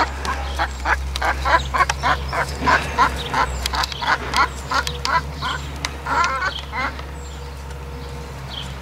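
A hen clucking over and over, about three short clucks a second, stopping about seven seconds in. The owner takes it for the hen telling the newcomers who's boss.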